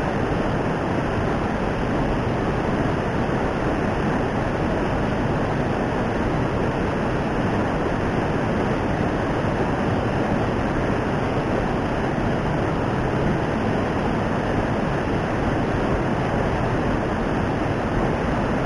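Fast-flowing stream water rushing steadily.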